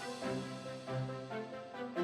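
Background music: a melodic instrumental bed with notes changing every few tenths of a second.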